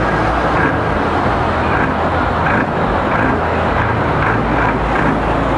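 Diesel engines of parked heavy trucks idling: a steady, loud mechanical noise with a low hum underneath.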